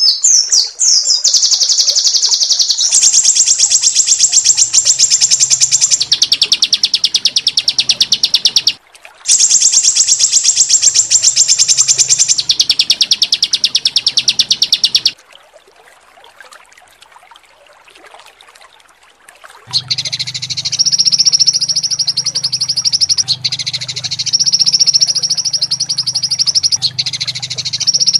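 Songbird calls of the rapid 'tembakan' (shot) type: long, very fast high-pitched trills with a short break about nine seconds in, then a much quieter stretch from about fifteen to twenty seconds. After that comes a different rapid high trill with a low buzz beneath it, broken by short gaps.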